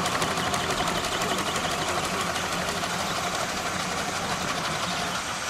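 Miniature steam traction engine chuffing past with a rapid, even exhaust beat.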